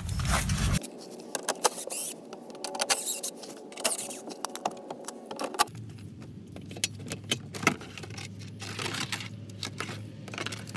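Scattered light clicks and clinks from plastic clips and fasteners being worked loose from an Infiniti G37's plastic engine undercover as the cover is pulled down.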